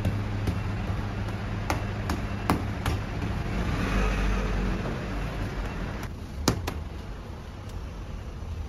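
Sharp knocks and slaps of a long rope of bread dough being handled on a stainless-steel worktable: several in the first three seconds, then a few more about six seconds in. Under them runs a steady low hum of kitchen equipment.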